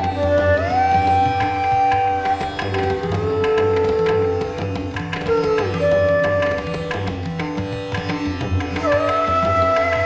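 Instrumental background music: long held melody notes that slide up into pitch, over a steady low drum beat.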